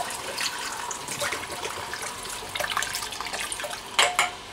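Apple juice pouring in a steady stream from a bottle into the pot of a Ninja cooking system, with a couple of knocks about four seconds in.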